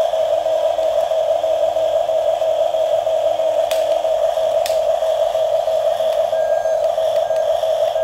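Toy RC bulldozer's sound module playing a steady electronic engine drone through its small speaker. A fainter lower tone comes and goes during the first half, and there are two light clicks about a second apart midway.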